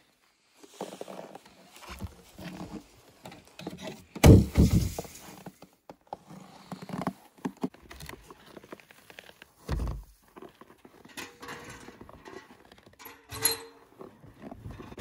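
Snow being brushed off the wooden lid of a well house and the lid lifted open, amid knocks and scrapes. The loudest is a thump about four seconds in, with another low thump near ten seconds and a short creak about thirteen seconds in.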